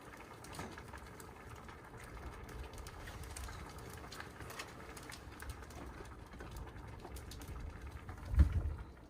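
Wind buffeting the microphone as a low rumble, with a strong gust about eight seconds in. Faint light clicks come through now and then.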